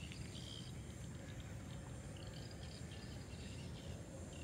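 Faint outdoor ambience: high pulsed chirping of insects repeating in short bursts, over a low steady rumble.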